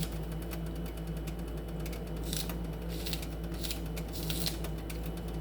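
Chopped vegetables being added to a pot of boiling broth: a few light clicks and taps, mostly in the second half, over a steady low hum.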